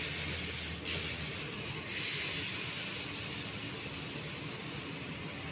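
Passenger train coaches rolling past close by on the adjacent track: a steady hissing rush of wheels on rail. It grows louder in steps about one and two seconds in.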